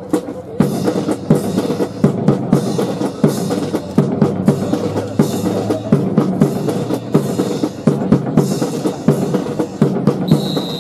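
Military band playing a march, with bass drum and snare keeping a steady beat over the brass.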